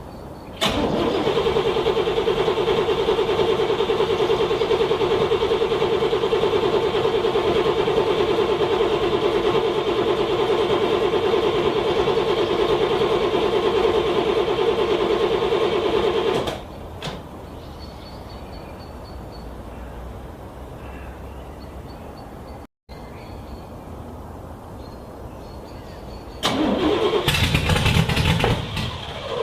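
Car starter cranking a cold engine in freezing weather, a steady fast churning that runs for about sixteen seconds and stops without the engine catching. A second cranking attempt starts about 26 seconds in.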